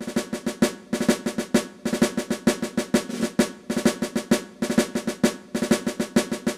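Intro music built on a fast snare drum pattern with drum rolls, a rapid, driving run of crisp strikes.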